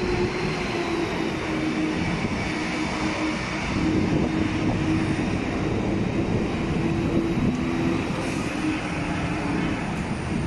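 Electric train running at an elevated station: a steady rumble with a held humming tone that drops slightly in pitch about three-quarters of the way through.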